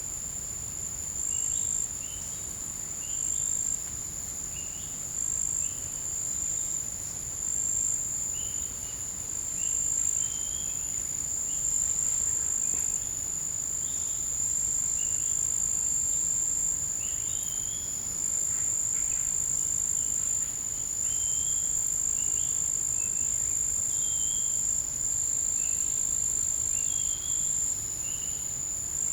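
Forest insect chorus: a steady, very high-pitched insect trill, with short, high chirps repeating roughly once a second over it.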